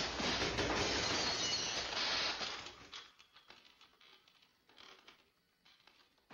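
Electric garage door opener motor sparking: a loud crackling hiss that dies away after about two and a half seconds into scattered crackles.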